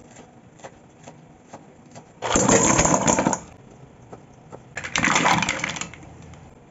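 Cleaver chopping on a wooden cutting board: a few single taps, then two loud spells of rapid chopping, each about a second long.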